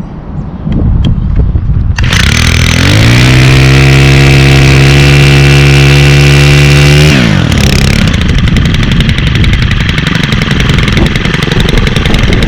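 Stihl KM111R 31cc 4-Mix combi engine, just pull-started, running low at first, then revved up about two seconds in and held at high speed with a steady pitch for about four seconds. About seven seconds in the throttle is released and it drops back to a rougher, lower-pitched running.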